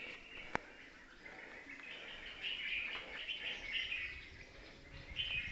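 Birds chirping and calling, with a single sharp click about half a second in.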